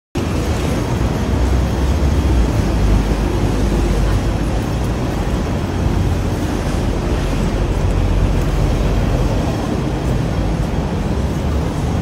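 Busy city street ambience: a steady rumble of road traffic under general street noise, with no distinct events standing out.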